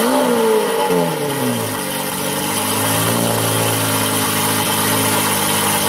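Lamborghini Aventador's V12 engine flaring high as it fires up, then the revs falling away over about two seconds and settling into a steady idle.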